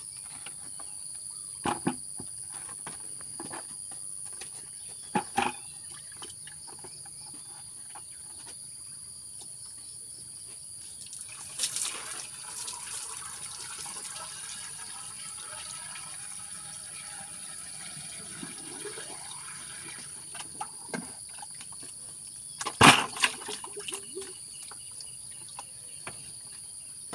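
Water poured from a bucket into the top of an irrigation water pump to prime it, splashing and gurgling for several seconds from about 11 seconds in. A steady high insect drone runs throughout. Scattered sharp knocks of hands working the metal pipe fittings, the loudest near the end.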